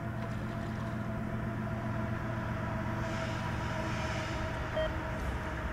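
Distant engine running steadily: an even low drone with a few steady hum tones over it, and a faint hiss about three seconds in.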